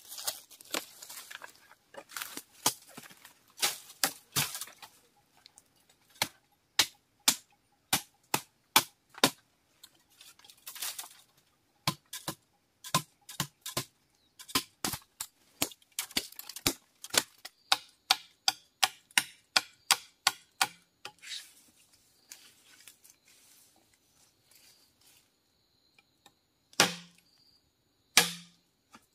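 Machete chopping bamboo: a long run of sharp, single strikes, about two a second, quickening to about three a second later on, with rustling in the first few seconds. Near the end come two heavier blows with a dull thud.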